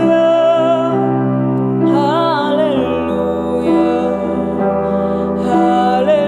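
Slow, gentle music: held chords under a melody line that wavers and rises and falls about two seconds in.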